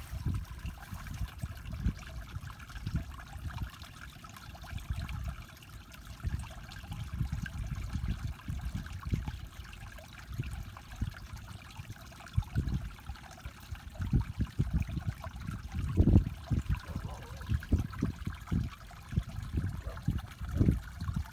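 Shallow ditch water trickling around a clogged culvert, with irregular low rumbles, the loudest about sixteen seconds in.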